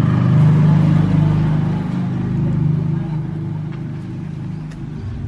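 Car engine running through an aftermarket HKS-style racing muffler, a deep, smooth bass exhaust note. It holds steady, then fades over the last couple of seconds.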